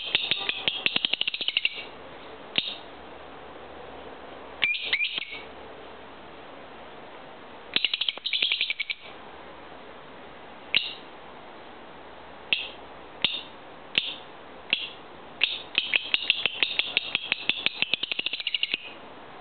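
Pet lovebird singing: quick runs of high, clicky chirps at the start, around five seconds in and around eight seconds in, single chirps spaced a second or so apart in the middle, and a long rapid run of chirps near the end.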